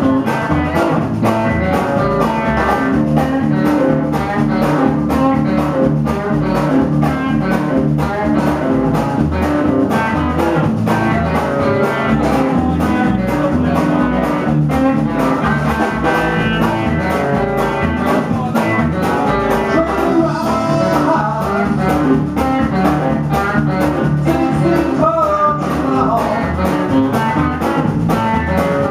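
A live band playing with a steady beat: upright double bass, guitar and drum kit.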